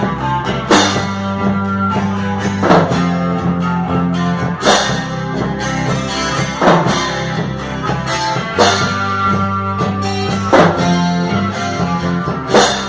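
Instrumental break of a band's song: guitar over bass and drum kit, with a strong drum accent about every two seconds and no singing.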